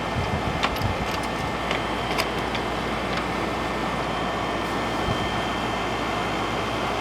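Whirlpool Coolerator 7000 BTU window air conditioner running: a steady rush of its fan with a faint whine over it, and a few light clicks in the first few seconds.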